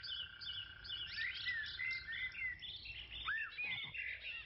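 Small birds chirping and calling, many short high notes, several sweeping downward. A steady thin high tone runs under them and stops about halfway through.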